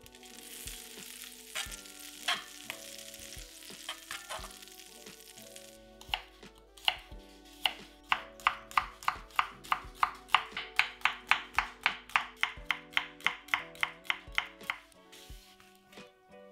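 Butter sizzling as it melts in a frying pan, then a chef's knife chopping garlic cloves on a wooden cutting board: a few separate cuts, then a quick even run of about four strokes a second that stops shortly before the end.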